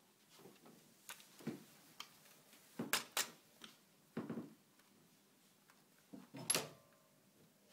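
Scattered knocks and bumps at irregular intervals, the loudest about three seconds in and again near six and a half seconds in, with a brief faint squeak just after the last one.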